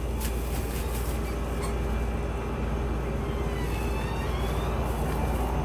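Steady low mechanical hum with a faint steady drone over it, unchanging throughout: the background machinery noise of the shop.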